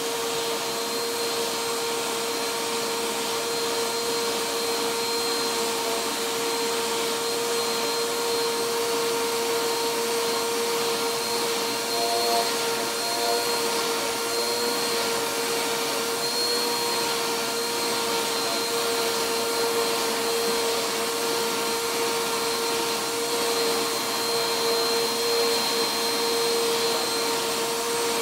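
Vacuum cleaner running steadily, its hose and brush nozzle being drawn through a cat's fur; a constant hum sits under the rushing air.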